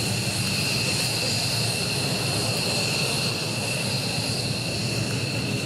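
F-15J fighter's twin F100 turbofan engines running at taxi power: a steady jet rush with a high, even whine held on two steady tones.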